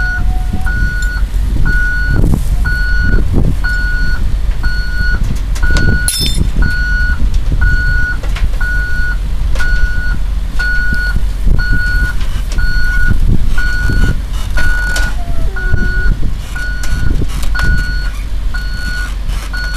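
Caterpillar 325C excavator crawling on its steel tracks, its diesel engine running under load with the tracks clanking. A warning alarm beeps steadily about once a second, and there is a brief high squeak about six seconds in.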